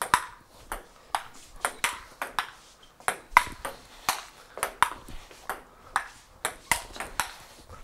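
Table tennis rally: the celluloid ball clicks off the paddles and bounces on the Stiga table, a steady back-and-forth of about three sharp clicks a second.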